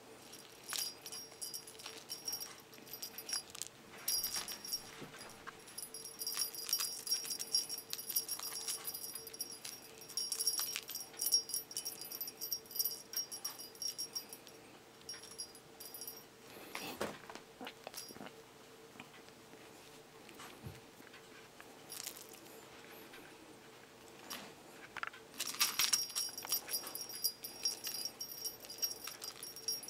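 A jingling cat toy, a fluffy toy mouse on a string, shaken in bursts as a Scottish Fold kitten bats and bites it; the jingling is busiest in the first third and again near the end.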